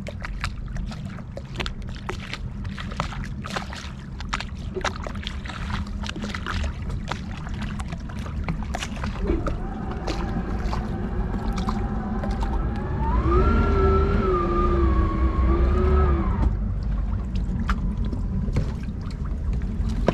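Wake boat's inboard engine rumbling slowly in and out of gear as it comes up to a dock, with scattered small knocks and splashes. About two-thirds of the way through the engine is throttled up in reverse to swing the stern in: the rumble grows and a whine rises in pitch, then drops back after a few seconds.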